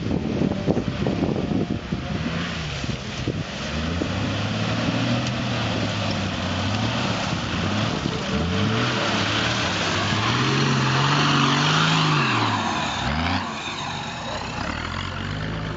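Off-road 4x4 engine revving up and down repeatedly as the vehicle pushes through mud, with its wheels churning. The revs climb and hold high, then drop off sharply near the end.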